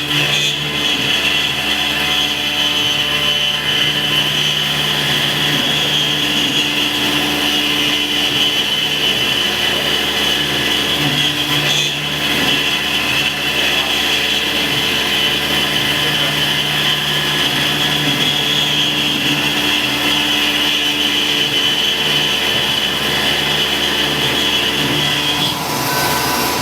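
Tormach PCNC 1100 CNC mill cutting 6061 aluminum: the spindle runs with a steady high whine as the milling cutter takes a fairly aggressive cut, with a lower tone coming and going as the tool moves through the part. The whine stops shortly before the end.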